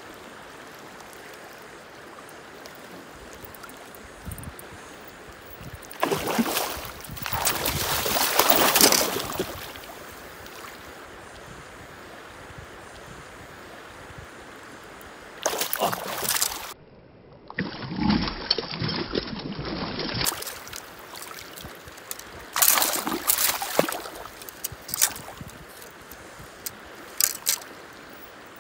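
Steady rush of a shallow river, broken by loud bouts of splashing as a large trout is wrestled and grabbed by hand in the water. The longest bout comes about six seconds in, with shorter ones through the middle and toward the end.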